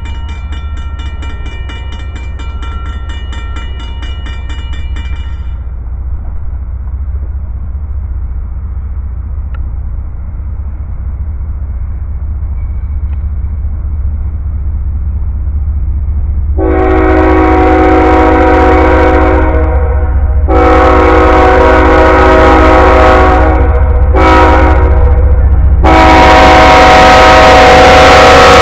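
CN freight diesel locomotive horn sounding the grade-crossing signal: two long blasts, a short one, then a long one held into the end, over a low rumble of the approaching train that grows steadily louder. A high ringing at the start stops about five seconds in.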